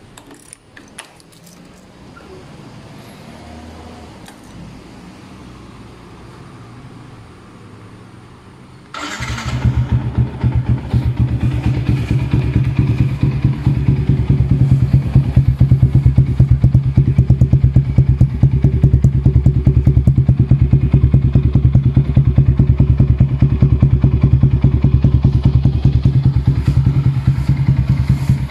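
Yamaha Y15ZR 150 cc single-cylinder four-stroke motorcycle fitted with a UMA Racing exhaust: a few key clicks at the ignition, then about nine seconds in the engine starts and settles into a steady idle with a rapid, even exhaust pulse.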